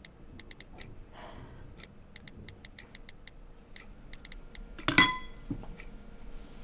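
Light, quick clicks of a smartphone's keypad as it is typed on, a few a second. About five seconds in, a spoon clinks once against a soup bowl and rings briefly.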